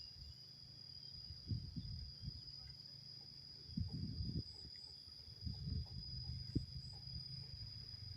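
Insects, likely crickets, giving one steady high-pitched trill, over low, uneven rumbling that swells and fades several times.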